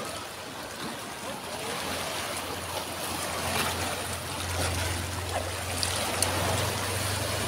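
Small waves washing and breaking over a rocky reef in shallow water, with a low steady rumble underneath that grows a little stronger about halfway through.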